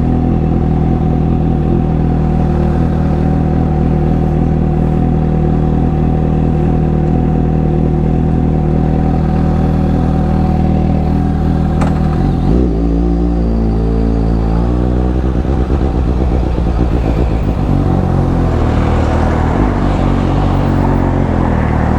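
Suzuki GSX-S750's inline-four engine and exhaust idling steadily. About halfway through it revs and pulls away, its pitch rising and falling as the bike accelerates.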